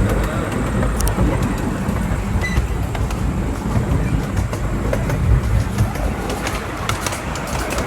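Onboard ride noise of a small museum train: a steady low rumble of the cars rolling along the track, with scattered sharp clicks and knocks that come more often near the end.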